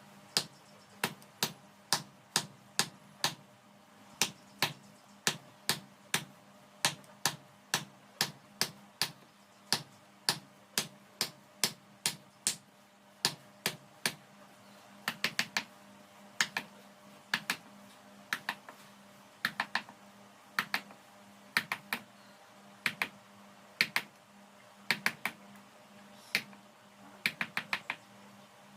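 Light, sharp hammer taps on metal, about two a second at first and then in quick bursts of three or four, over a steady low hum.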